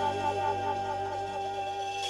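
Recorded music played through the Akkord 201 stereo amplifier and loudspeakers: a held chord of instrument notes, several of them wavering in pitch.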